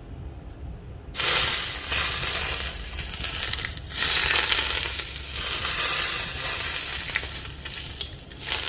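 Very hot cooking oil poured over a steamed fish, sizzling and crackling: it starts suddenly about a second in and swells again several times.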